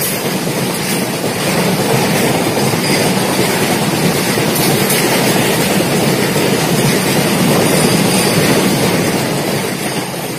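Meter-gauge passenger train rolling past on the rails with a steady, loud running noise and a few clicks from the wheels. The sound starts to fade near the end.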